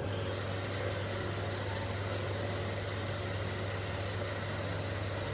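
Steady low hum over a constant background hiss, even throughout, with no distinct handling or pouring sounds.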